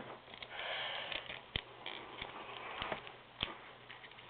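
Plastic action figures being handled, with a few sharp plastic taps over a faint breathy noise close to the microphone.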